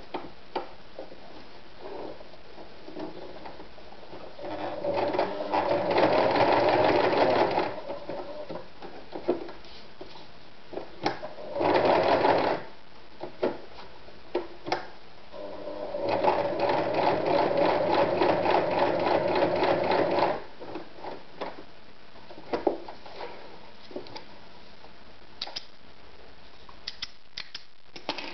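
AEG NM 376 B electric sewing machine running in bursts as it stitches a small piece of material: a run of about three seconds, a short run of about a second, then a run of about four seconds, with small clicks and handling knocks in between.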